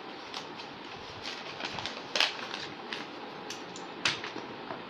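Paper and cardboard being handled: scattered crinkles and taps as packing paper is lifted out of a cardboard shipping box, the sharpest about two seconds in and again about four seconds in, over a steady background hiss.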